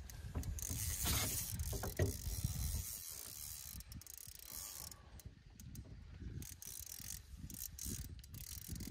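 Fishing reel ratcheting and clicking as line is worked in against a hooked pike pulling deep under the boat.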